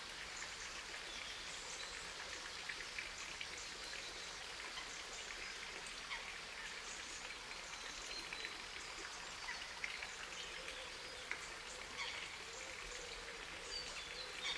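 Faint outdoor ambience: a steady soft hiss scattered with many small, irregular ticks and clicks.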